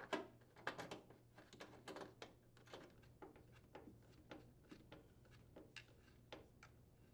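Faint, irregular clicks and light knocks of hand tools and hardware as the microwave is fastened with its mounting bolts, loudest right at the start.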